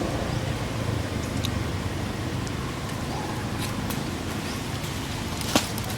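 Steady outdoor background noise, with a single sharp click about five and a half seconds in.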